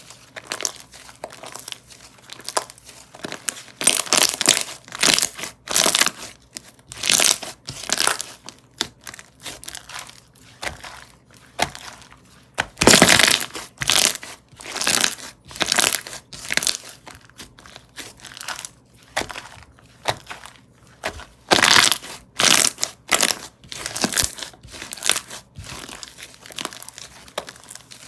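Hands squishing, folding and stretching slime, making crinkly, crackling squelches in irregular bursts of one or two a second, with a louder run about halfway through.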